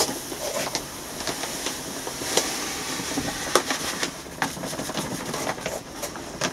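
Vermiculite granules pouring from a plastic bag onto a bed of vermiculite: a steady rushing hiss that swells about two seconds in and then eases, with scattered sharp clicks.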